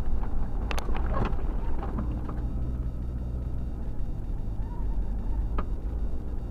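A vehicle driving over sand, a steady low rumble of engine and travel noise, with a few sharp knocks about a second in and one near the end.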